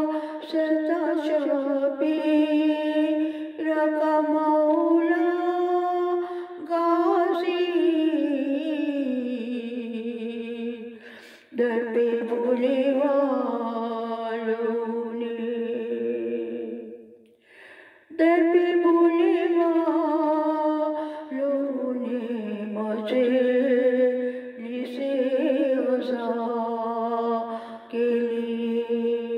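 A woman chanting a devotional munajaat unaccompanied, in long melodic phrases with held, gliding notes and short breaks between them, the longest a little past the middle.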